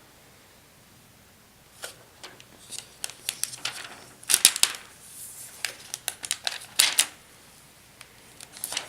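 Replacement laptop screen being handled: a run of sharp clicks and crackles that starts about two seconds in, loudest around the middle.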